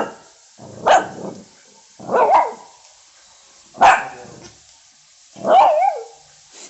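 A dog barking: five separate barks spaced about a second or more apart, several of them with a wavering, whiny pitch.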